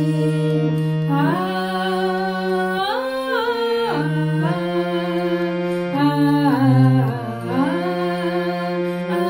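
A woman singing a song to her own harmonium accompaniment. The harmonium holds steady notes underneath while her voice slides up and down between notes.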